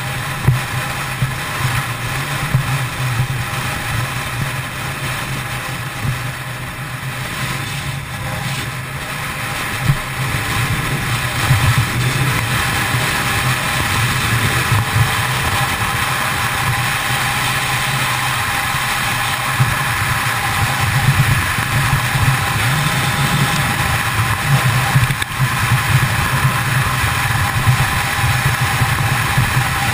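Kawasaki ZX-10R's inline-four engine running steadily at highway cruising speed, mixed with wind and road noise on the rider's camera. It grows a little louder from about ten seconds in.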